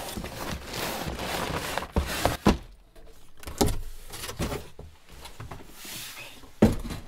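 A large corrugated cardboard shipping box being lifted and slid off a boxed set: cardboard scraping and rubbing against cardboard, with a few sharp knocks, the loudest near the end.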